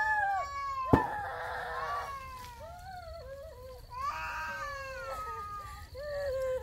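A young child crying and whimpering in a high, wavering voice, with a sharp knock about a second in.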